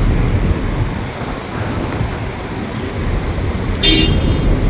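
Steady city street traffic noise with the rumble of passing vehicles, and a short horn toot near the end.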